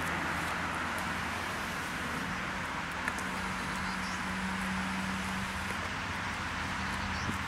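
Steady hum and hiss of distant road traffic, with one short click about three seconds in.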